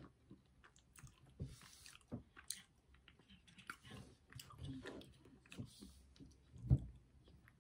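Close-up eating sounds: chewing and biting of hotteok with ice cream, with small clicks of a metal fork scraping and tapping in a paper ice-cream tub. A louder dull thump comes near the end.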